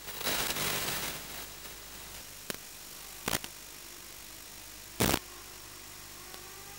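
Analog FPV video link's audio channel hissing, with a burst of louder static in the first second and short crackles of static about two and a half, three and a quarter, and five seconds in.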